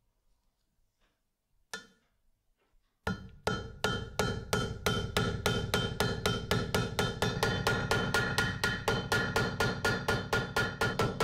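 Small hammer peening a brass pin to rivet it into a beech-wood screwdriver handle, the pin's end spreading into a head. A single tap comes first, then about a second later a steady run of quick light taps, about five a second, with a lingering metallic ring.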